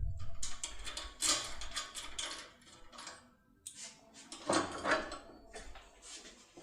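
Lock-opening tool worked inside a lock cylinder: irregular metallic clicks and scraping as it is jiggled and turned, with a louder cluster of clicks about four and a half seconds in.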